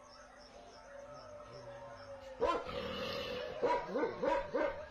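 A dog barking in short yips, starting about halfway in, with a quick run of them near the end.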